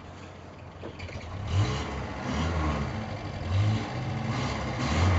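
1977 Toyota Hilux's four-cylinder petrol engine revved up from idle a few times, the revs rising and falling after a quieter first second or so.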